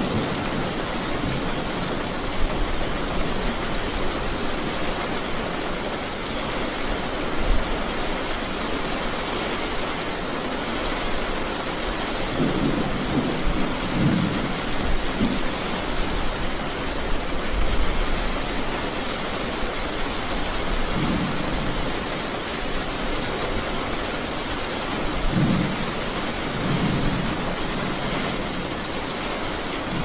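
Thunderstorm: steady rain with several low rumbles of thunder, clustered about halfway through and again near the end.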